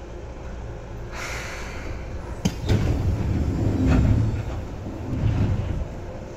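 Seibu 2000 series electric train running, heard from inside the car: a steady rumble, a sharp knock about two and a half seconds in, then heavier low rumbling for a couple of seconds and again briefly near the end.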